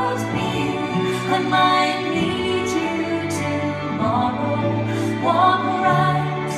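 Live concert music: a woman singing long held notes with a band accompanying her, heard from the audience of a theatre.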